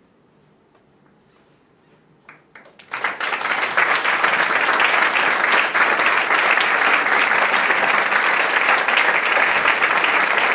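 Small audience applauding: a near-quiet pause with a few faint clicks, then clapping breaks out suddenly about three seconds in and stays dense and steady.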